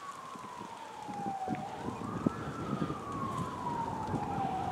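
Emergency vehicle siren in a slow wail: the pitch falls, rises once about two seconds in, then falls again. Irregular faint ticks and rustling lie underneath.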